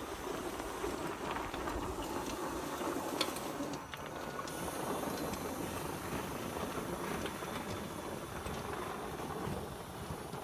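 Home-built electric mini skid steer running, its chain drive and motors making a steady rattling rumble with a hiss over it and scattered small clicks. There is a short dip in level about four seconds in.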